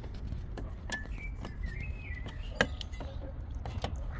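Scattered clicks and knocks of a socket wrench working a spark plug loose from a Volvo 940 engine, one knock louder than the rest a little after halfway. A wavering high chirp sounds for about a second near the start.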